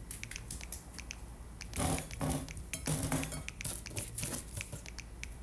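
Irregular light clicks and clinks of small objects being handled, with a few louder muffled knocks about two and three seconds in, over a low steady hum.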